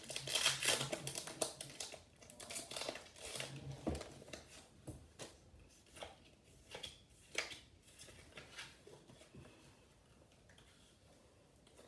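Foil wrapper of a Pokémon booster pack being torn open and crinkled, densest in the first two seconds, then scattered crinkles and light clicks that die away near the end.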